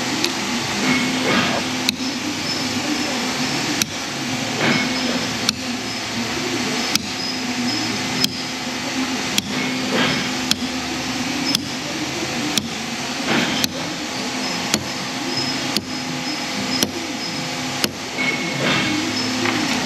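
Steady machine hum in a workshop, with a sharp click about once a second and a few softer scraping noises between.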